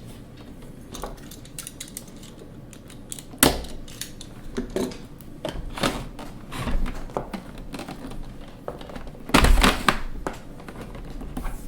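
Transit tape and packing being pulled off a plastic single-serve coffee maker, which is handled and set down: scattered clicks, rustles and knocks. One sharp knock comes about a third of the way in, and a louder cluster of knocks about four-fifths through.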